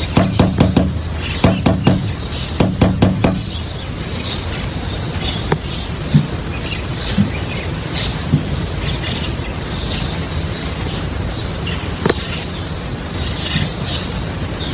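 House cat growling at another cat, a low pulsing growl in three short runs over the first few seconds that then stops. Birds chirp in the background.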